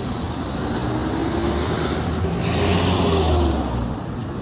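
A motor vehicle passes close by: its engine and tyre noise swell to a peak about three seconds in and then fade, over steady background road traffic.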